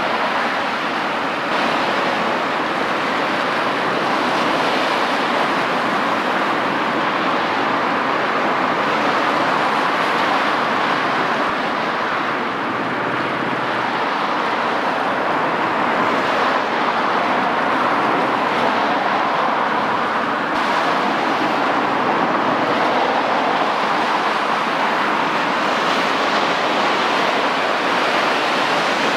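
Steady rush of churning seawater and waves from a large cargo ship's bow wave and wake passing by: an even hiss with no engine tone heard.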